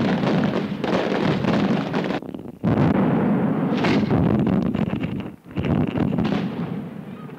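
Dense, continuous barrage of firecracker bangs and crackling from a Fallas mascletà, heard through an old Super 8 magnetic soundtrack. The sound drops out abruptly twice, about two and a quarter seconds in and again around five and a half seconds in, then comes back full each time.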